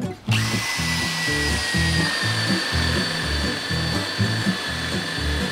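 Cordless drill running a spade bit through a board: a steady motor whine that starts about a third of a second in and sags slightly in pitch. Background music with a steady beat plays under it.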